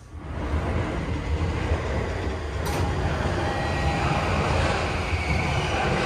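Subway train pulling away from a station: the running noise of motors and wheels builds up about half a second in and carries on steadily as the car gathers speed, with a faint motor whine over it.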